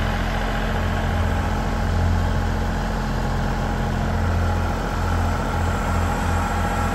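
Kubota L3901 compact tractor's three-cylinder diesel engine running steadily as the tractor creeps forward. Near the end its low drone begins to pulse, about three beats a second.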